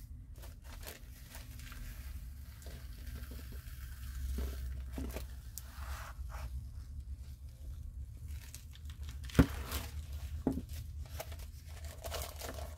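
Paper being handled: journal pages turned and a thin sheet of paper rustling and crinkling as it is pressed onto a page by hand. Scattered light ticks, with one sharp tick about nine seconds in that is the loudest moment.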